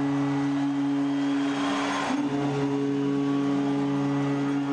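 Ice hockey arena goal horn sounding one long steady low note over a cheering crowd, signalling a home-team goal.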